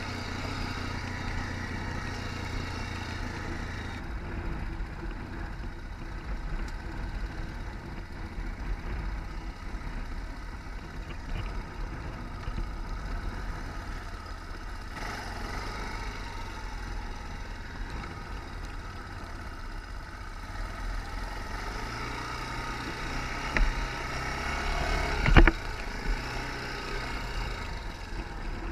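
ATV engine running steadily while riding, its note shifting little. Near the end there are two sharp knocks a couple of seconds apart; the second is the loudest sound.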